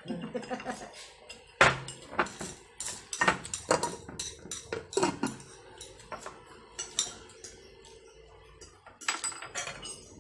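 Forks and spoons clinking and scraping against plates while people eat, with many sharp clinks in the first half and only a few later.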